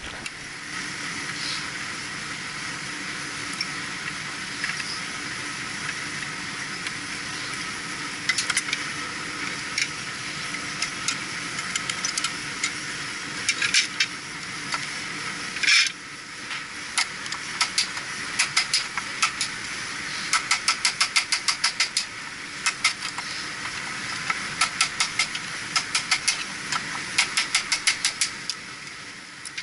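Steady hiss with runs of sharp clicks from hand tools (screwdriver and pliers) working the wiring terminals in a Trane compressor's electrical terminal box, several clicks a second in places, with one louder knock about halfway through.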